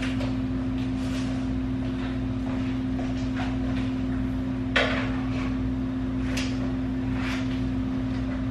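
Steady machine hum with a low tone, unchanged throughout, over light clicking and rustling of handling, with one sharper clack about five seconds in.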